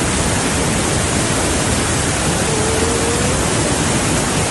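Floodwater rushing in a steady, loud, even roar. A faint short rising tone sounds just past halfway.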